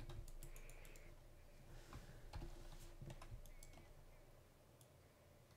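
Near silence broken by a few faint, scattered clicks of a computer mouse and keyboard, thinning out toward the end.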